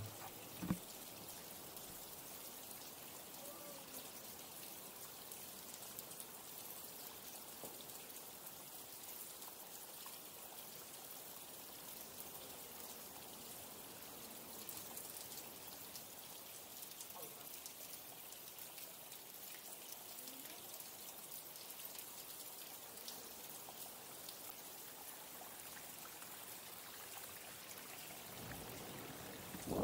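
Steady, faint trickle and patter of flowing water, with one short thump about a second in.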